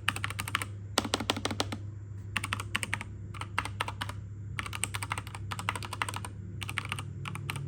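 Typing on a JEDEL KL-158 full-size mechanical keyboard with red switches, recorded close up: quick runs of key clicks in bursts of up to a second, broken by short pauses.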